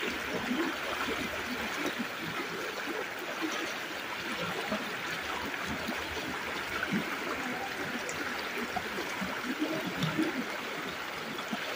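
Floodwater flowing steadily down a flooded lane, a continuous running-water sound with small irregular gurgles.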